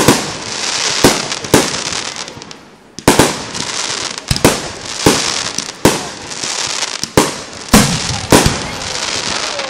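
Fireworks display: about a dozen aerial shell bursts bang at irregular intervals of half a second to a second and a half, with a steady hiss between them. There is a short lull about two and a half seconds in before the bangs resume.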